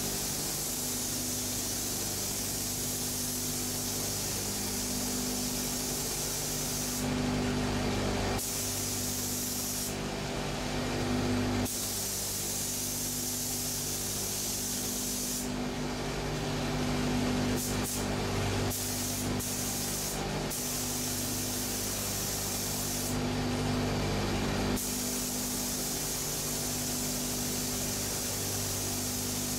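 Compressed-air spray gun with a gravity-feed cup spraying a coating onto a car's rocker panel: a steady hiss of air that changes in tone several times as the spraying goes on.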